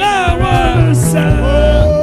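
Gospel worship song: a voice sings a bending melody over a band whose bass steps from note to note.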